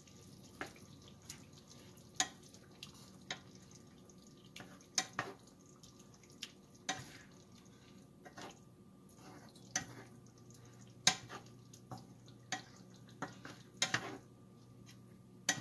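Wooden spoon stirring a thick chicken and yogurt gravy in a large pan: irregular sharp clicks and taps of the spoon against the pan, one or two a second, over a faint steady hum.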